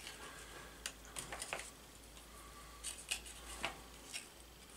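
Faint, scattered clicks and light ticks from a thin, clear plastic model canopy being handled and a pair of small scissors being picked up to trim it.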